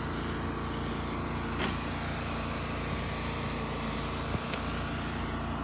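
A small motor running steadily, a constant drone with no change in pitch, and a sharp click about four and a half seconds in.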